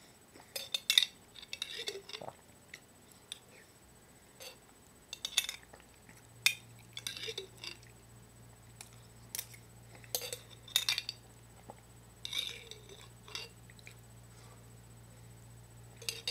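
A spoon clinking and scraping in a glass jar of pasta sauce as someone eats from it: scattered sharp clinks every second or two, with softer scrapes between.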